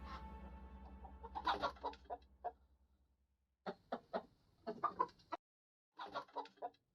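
Chicken clucking in three short runs of quick clucks: one about a second and a half in, one near the middle and one near the end, while the closing music fades out at the start.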